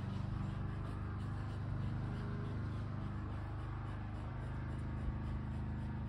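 A steady low motor hum with a droning pitch.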